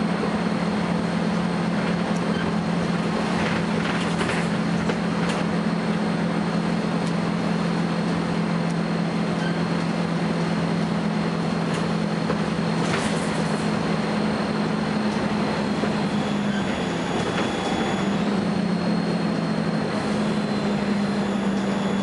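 Volvo B10BLE bus heard from inside while driving: a steady engine drone with a thin, high-pitched whine held above it. About two-thirds through, the drone changes briefly and the whine shifts in pitch a few times.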